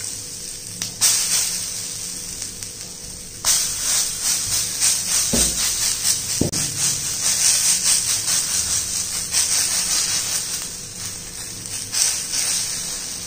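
Oats-and-vegetable dosa batter sizzling on a hot iron dosa tawa as it is spooned on and spread out with a metal spoon scraping over the pan. The sizzle flares up suddenly about a second in, again at three and a half seconds, and near the end as fresh batter meets the hot iron.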